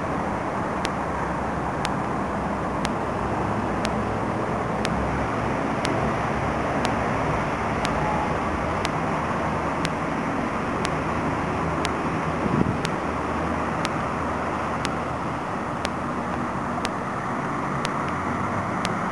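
Steady rumble of vehicle noise with an even hiss, and a faint tick about once a second.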